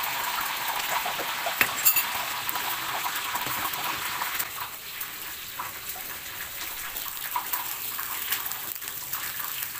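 Beaten eggs sizzling in hot oil in a non-stick wok as they are stirred and scrambled with a spatula: a steady frying hiss with a few light spatula taps early on the pan.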